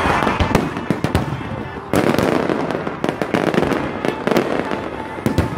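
Fireworks going off: a dense run of sharp bangs and crackling reports, several a second, with a louder cluster starting about two seconds in.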